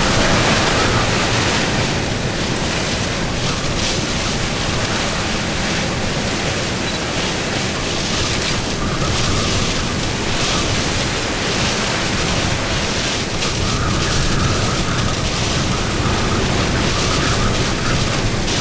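Hurricane-force wind of a hurricane's back eyewall blowing in a steady, dense rush of noise that never lets up.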